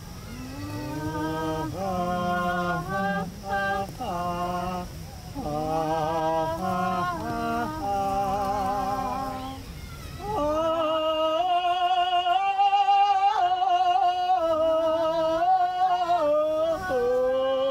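Wordless singing by the performers' voices in long held notes. A lower voice and a higher one sing together for about nine seconds; after a short break about ten seconds in, a higher voice takes over with long wavering notes.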